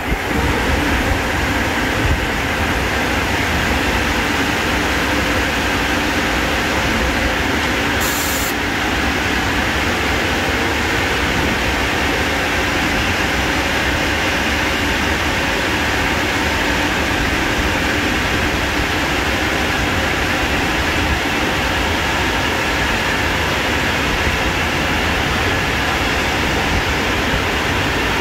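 Automatic gantry car wash running its drying stage: a steady, loud rush of air from the blower nozzles over the car, with a brief high hiss about eight seconds in.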